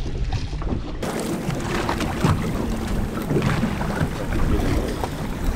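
Wind buffeting the microphone over steady boat and water noise on an open fishing boat at sea. The sound changes abruptly about a second in and becomes brighter and hissier.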